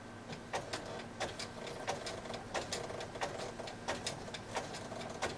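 Electronic sewing machine stitching a zigzag seam slowly through knitted fabric, set to low speed: a faint motor hum with sharp needle clicks in close pairs, about three clicks a second, starting about half a second in.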